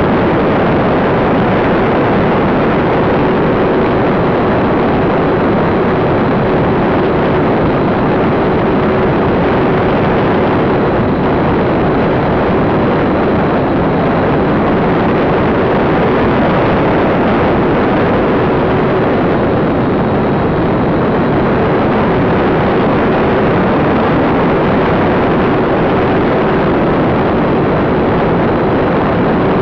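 Radio-controlled YC-14 model plane in flight, heard from a camera on its tail: a loud, steady rush of airflow across the microphone with a constant motor tone underneath.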